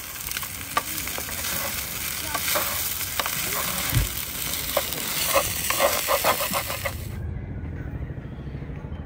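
Garlic fried rice sizzling in a pan while a utensil stirs it, scraping and tapping against the pan. The sizzling cuts off abruptly about seven seconds in, leaving a low steady hum.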